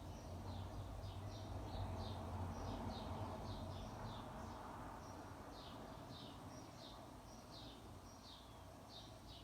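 Arno Ultra Silence Force electric fan running, a steady low hum under an even rush of air, slightly louder in the first half. Over it a bird chirps over and over, short falling chirps about two or three a second.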